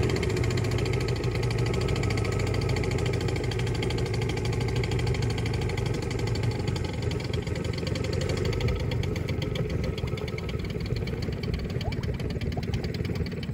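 Boat motor running steadily with a fast, even pulse, somewhat quieter in the second half.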